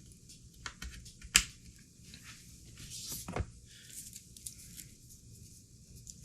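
Crinkly rustling and scattered sharp clicks of hands handling PC power cables and plastic parts inside a computer case, with one loud click about a second and a half in.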